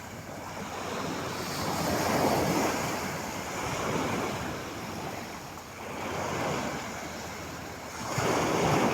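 Sea waves washing onto the shore, surging and ebbing about four times, with wind buffeting the microphone.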